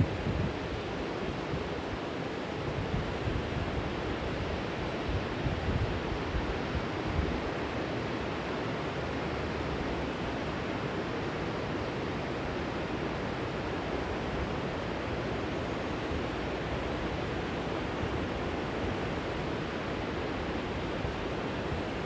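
Steady rush of river water pouring over a low weir. Gusts of wind buffet the microphone in the first several seconds, with one sharp bump right at the start.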